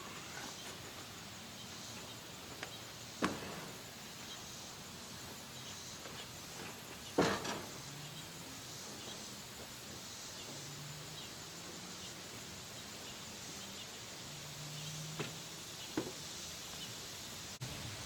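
Lumber being unloaded: four sharp wooden knocks as boards and posts are set down, the loudest about seven seconds in, over steady outdoor background noise with a faint hum that comes and goes.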